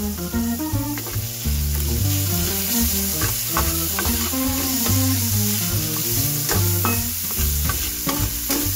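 Food and garlic sizzling in hot oil in a honeycomb-surface wok, stirred with a metal spatula that scrapes and taps against the pan now and then. Background music with a stepping bass line plays underneath.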